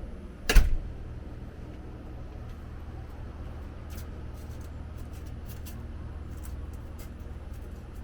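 A single sharp bang about half a second in, then a steady low rumble with a few faint clicks.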